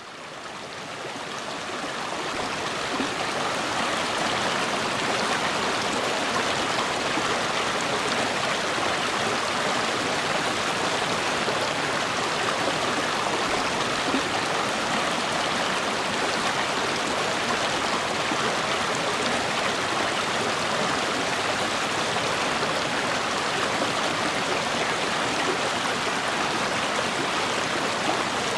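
Flowing river water rushing steadily, fading in over the first few seconds.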